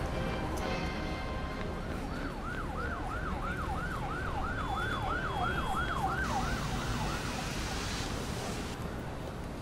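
Emergency vehicle siren in a fast yelp, rising and falling about three times a second. It comes in about two seconds in and fades away past the middle, over a steady low rumble.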